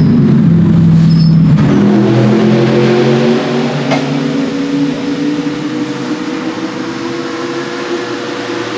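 Mercedes-AMG GT3 race car's V8 engine coming down in revs as the car rolls into its pit box, then idling steadily and a little quieter from about two seconds in.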